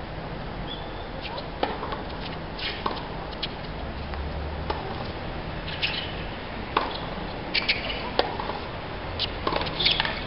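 Tennis rally on a hard court: about a dozen sharp, irregularly spaced pops of the ball off the rackets and off the court, over a steady low background hum.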